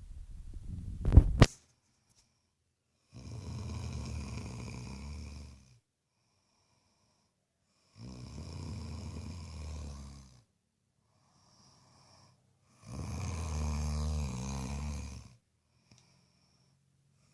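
Snoring: three long snores about five seconds apart, each lasting about two and a half seconds. A brief loud bump comes about a second in.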